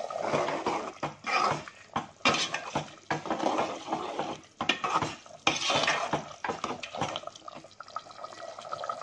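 Metal ladle stirring thick chicken curry in a metal cooking pot: repeated, irregular scrapes and clinks against the pot, with the liquid sloshing. Poppy-seed paste is being stirred into the simmering gravy.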